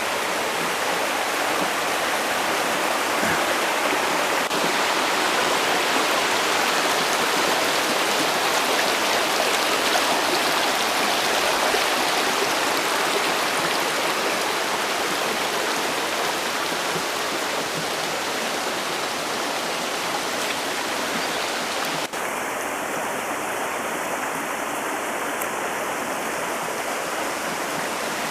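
Mountain stream's water rushing steadily, with a single faint click about three quarters of the way through.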